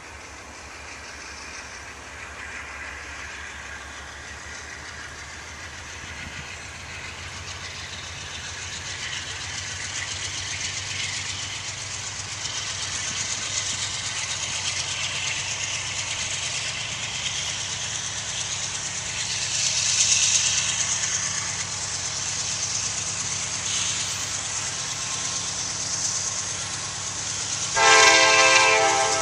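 GE C40-9W (Dash 9) diesel locomotive's 16-cylinder engine working hard and barking, growing steadily louder as it approaches. It is under heavy load, towing 27 loaded cars and a dead locomotive and slug up a 1.85% grade. Near the end the locomotive's air horn sounds loudly.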